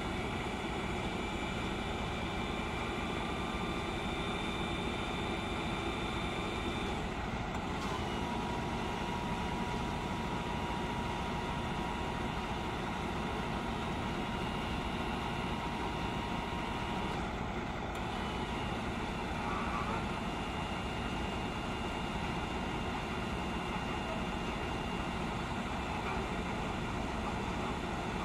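Diesel truck engine running steadily at idle, with faint high whines that change pitch about 7 and 17 seconds in.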